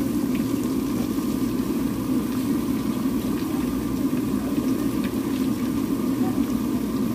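Deep fryer running steadily, with potato sticks bubbling in the hot oil of a mesh basket during their second fry. The sound is an even, low rumble with a few faint ticks.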